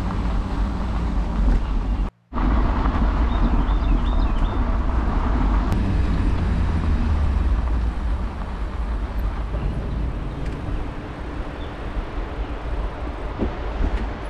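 Wind rushing over the microphone and tyres rolling on gravel while a bicycle is ridden along a trail, cutting out completely for a moment about two seconds in.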